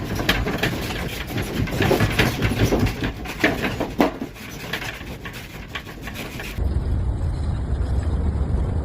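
Jumbled clattering and knocking over a noisy rumble, then an abrupt change about two thirds of the way through to a steady low hum.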